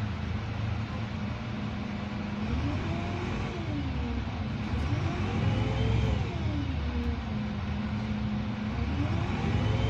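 Karosa B 961E articulated city bus heard from inside the passenger cabin while under way: a steady engine and drivetrain rumble with a whine that twice rises and falls through the middle and starts rising again near the end, as the bus changes speed.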